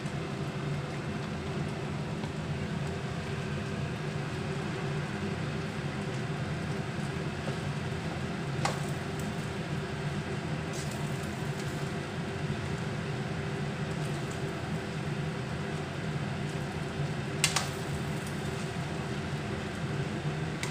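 Metal spatula stirring and tossing fried rice in a wok, over a steady hum. Two sharp clacks of the spatula against the pan stand out, one about midway and another about three seconds before the end.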